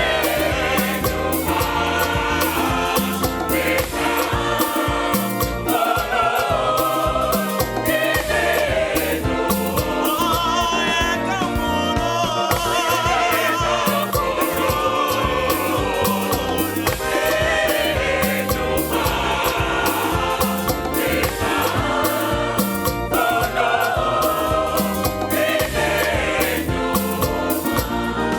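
A choir singing gospel music with band accompaniment and a steady beat.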